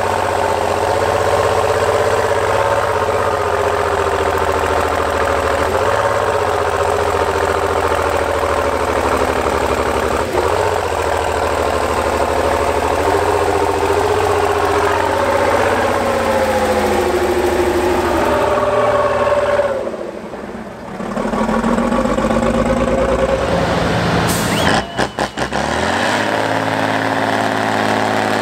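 Heavy diesel engines of off-road trial trucks revving as they crawl over a steep muddy slope, the note rising and falling again and again. Near the end it changes to another truck's engine running at a steadier pitch.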